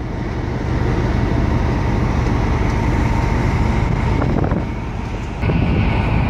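Wind rushing over the microphone on an open deck of a container ship under way, over the ship's steady low rumble. It gets louder about five seconds in.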